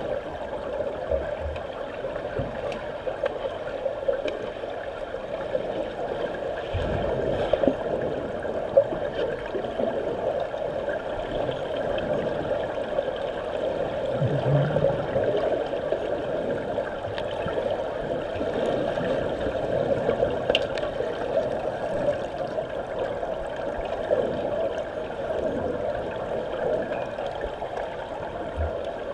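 Pool water churned by swimmers, heard through a submerged camera: a steady muffled churning hiss, with a few brief low thuds.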